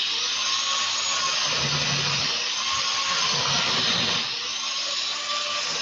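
Loud, steady rustling hiss of hands gliding over the hair, scalp and neck close to the microphone during a face-yoga self-massage. It starts abruptly as the hands reach the head and eases off near the end as they move down and away.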